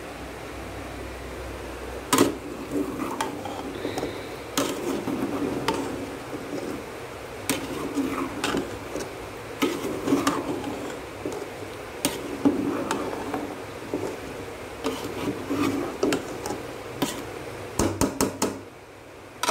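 A metal spoon stirring chopped okra and tomatoes in a metal pot, scraping the bottom and clinking against the sides in irregular knocks, with a quick run of taps near the end.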